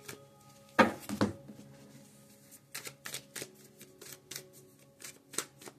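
A deck of oracle cards being shuffled and handled, heard as a run of crisp flicks and snaps, loudest about a second in. Soft background music with sustained tones plays underneath.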